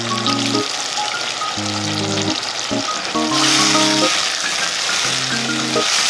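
Background music of sustained bass and chord notes changing every second or so, over a steady hiss.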